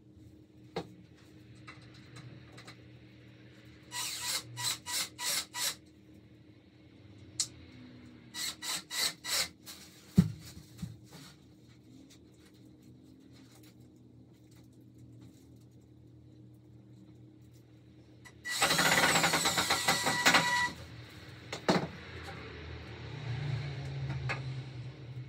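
Cordless drill driver driving screws into a wooden shelf frame: two runs of quick trigger pulses, a single knock, then one longer run of about two seconds about two-thirds of the way in.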